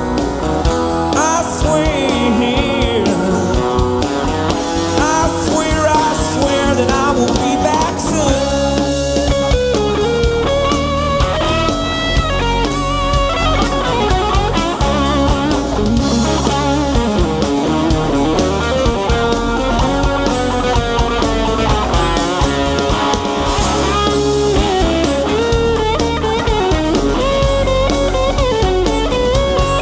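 Live rock band playing an instrumental break: an electric guitar lead with bent, wavering notes over drums, bass and a strummed acoustic guitar.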